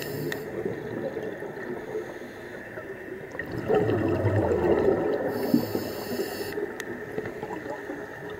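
A scuba diver breathing through a regulator, heard underwater over a steady watery wash. A burst of exhaled bubbles comes about four seconds in, followed by the hiss of an inhalation lasting about a second.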